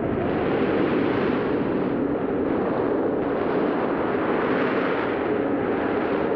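Heavy sea surf breaking on rocks: a continuous, loud rush of churning water with no let-up, on an old film soundtrack that has lost its top end.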